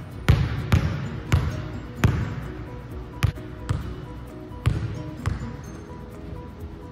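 Basketball bouncing on a hardwood gym floor, about eight thuds at an uneven pace as it is shot, recovered and dribbled, over background music.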